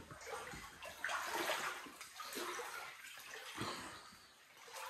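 Floodwater sloshing and swishing around someone's legs as they wade through a flooded room, several sloshes about a second apart.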